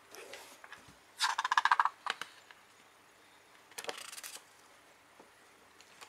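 Pages of a thick book with glossy paper being turned and flicked by hand. A soft swish comes first, then two quick bursts of rapid flicking, about a second in and again near the four-second mark; the first burst is the louder.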